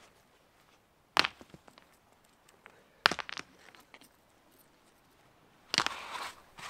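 Beach stones knocking together as they are picked up and set down: two sharp clacks about two seconds apart, each followed by a few lighter clicks. Near the end comes a burst of scuffing as a foam clog kicks sand and seaweed.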